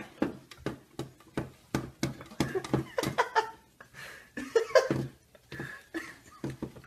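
Dog licking whipped cream off a plastic toy hand: a quick run of wet, clicking licks, about three a second, with a person laughing partway through.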